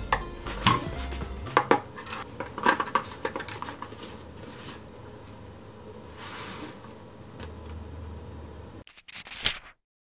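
Plastic bento box pieces being handled and set down on a wooden board: light clicks and taps over the first few seconds. A soft rustle follows about six seconds in, and there is one sharp knock near the end before the sound cuts off.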